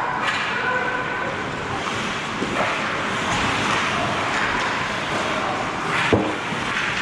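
Hockey skate blades scraping and carving the ice as players skate in toward the goal, a steady hiss, with a sharp knock about six seconds in.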